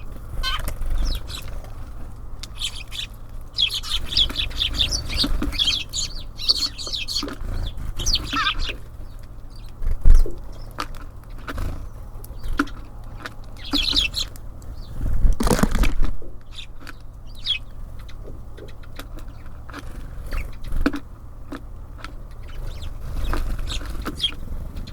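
Small birds at a feeder: scattered short, high chirps, with wing flaps and sharp knocks as birds land and peck, over a steady low rumble. The loudest moments are a knock about ten seconds in and a longer flurry a few seconds later.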